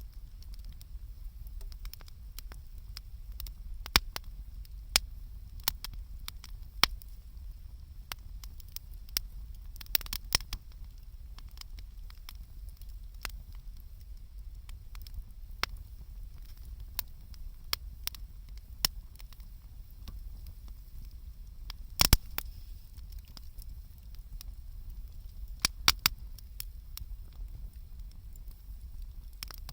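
Wood campfire crackling: irregular sharp pops and snaps, the loudest a quick pair about three-quarters of the way through, over a low steady rumble.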